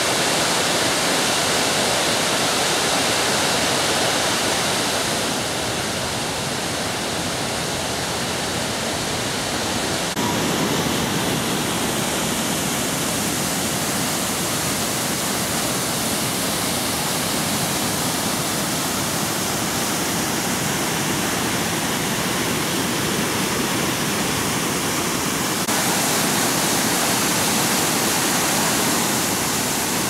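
Steady rushing of a large waterfall: a wide curtain of water pouring over a rock ledge into the river below. The tone shifts slightly a few times.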